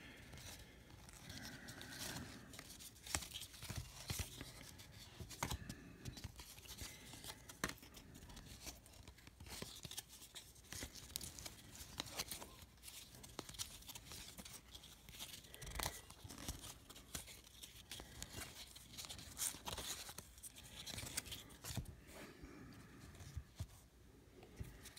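Baseball trading cards being thumbed through by hand, the glossy card stock sliding and rubbing against the stack with faint scrapes and irregular small clicks.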